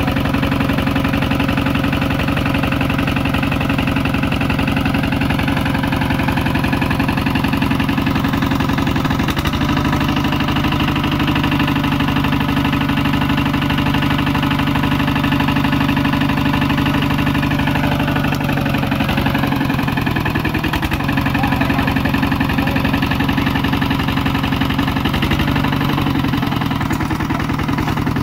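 Kubota RT140 single-cylinder diesel engine on a walking tractor running steadily with an even firing beat. Its note shifts slightly about a third of the way in and dips briefly around two thirds in.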